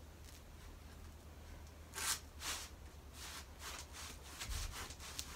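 Soft, irregular rustling and swishing of fursuit fur and fabric as the fursuit head is lifted and pulled on, starting about two seconds in, over a faint low hum.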